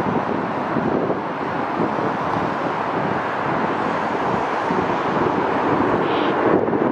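Steady engine noise from a small twin-engine plane on the runway, mixed with wind buffeting the microphone, growing slightly louder near the end.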